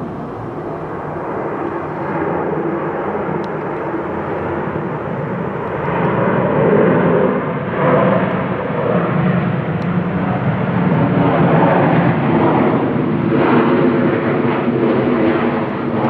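A Delta Boeing 737's jet engines rumbling steadily as the airliner rolls out on the runway after touchdown. The noise grows louder about two seconds in and stays strong to the end.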